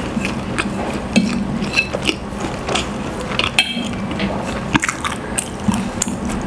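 Close-miked chewing of pancit canton instant noodles, with many short wet smacks and clicks throughout and a metal fork now and then clinking on a ceramic plate.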